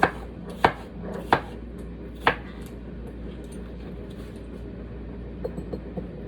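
Knife chopping cucumber on a cutting board: four sharp chops in the first two and a half seconds, then a few lighter taps near the end.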